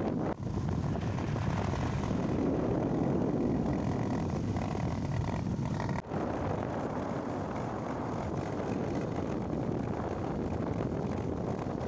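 Motorcycle riding at speed on a highway: steady wind rush on the microphone over the engine and road noise. The sound drops out briefly twice, about half a second in and about six seconds in.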